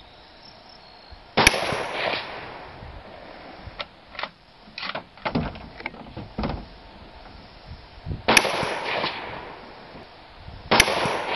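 Three .270 rifle shots, about a second and a half in, near the end, and just before the end, each followed by a slowly fading echo, with smaller clicks and knocks between the first two. None of the shots sets off the Tannerite target.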